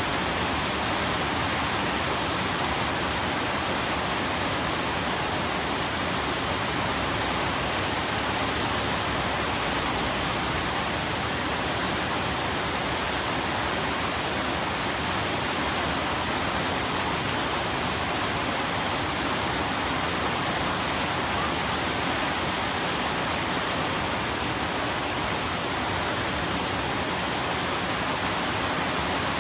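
Steady heavy rain, an even unbroken hiss with no distinct drops or thunder.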